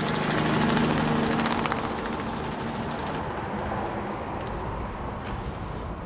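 An engine or motor running steadily with a low hum, a little louder in the first couple of seconds and then settling.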